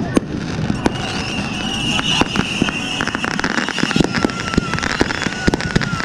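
Fireworks going off close by: a rapid, irregular run of sharp bangs and crackles, with long high whistles over them, one from about a second in and a lower one in the last two seconds.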